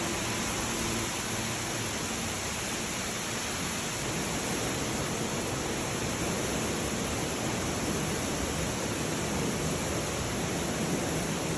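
Floodwater rushing through a subway station, a steady, even rushing hiss.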